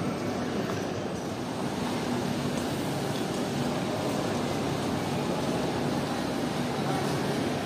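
Steady rumbling ambience of a busy airport terminal hall, with wheeled suitcases rolling over the tiled floor and a low steady hum underneath.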